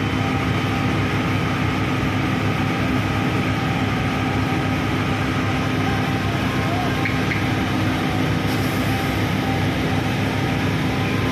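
Steady mechanical rumble with a constant hum, like an engine running without letting up.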